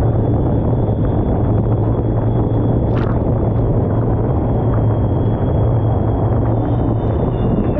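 SailGP F50 catamaran moving fast, heard from just above the water between its hulls: a loud steady rush of water and wind with a steady low hum, and a single sharp knock about three seconds in.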